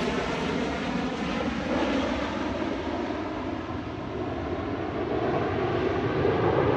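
Jet engine noise from a Harrier II jump jet's Rolls-Royce Pegasus turbofan as it flies slowly overhead. The sound is steady, dips a little about halfway through, then grows louder towards the end.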